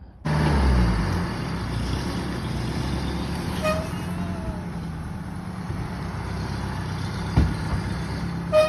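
Silver Eagle coach bus's diesel engine running, loudest for the first second as it starts, then settling into a steady idle. Two short high chirps come once midway and once near the end.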